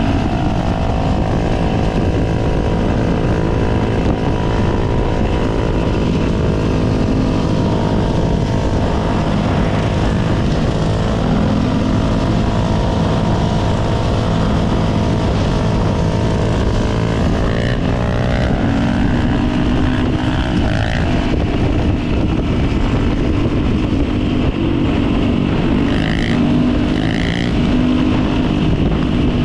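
Supermoto motorcycle engines running at road speed, the pitch shifting up and down with the throttle.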